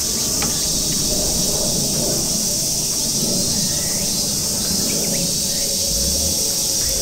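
Steady, high-pitched drone of a summer insect chorus that does not change throughout.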